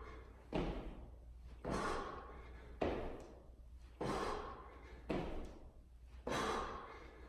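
Hard exhales of a man working through dumbbell jumping-jack presses, mixed with thuds of his feet landing. They repeat about once a second in a steady rhythm, one per rep.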